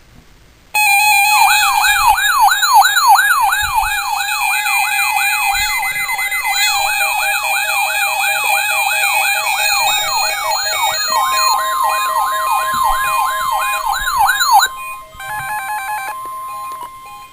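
Weather radio receivers alarming on the weekly NOAA Weather Radio warning-alarm test. A rapid up-and-down siren wail, about two and a half cycles a second, starts suddenly and stops abruptly after about 14 seconds. A steady high tone comes in partway through and continues, with stepped beeping near the end.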